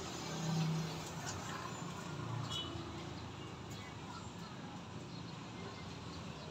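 Outdoor street background: a steady low rumble of distant traffic, with a few faint short high calls about two and a half seconds in.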